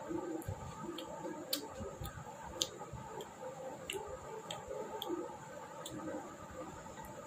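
A person chewing food close to the microphone, with irregular sharp wet mouth clicks about one or two a second.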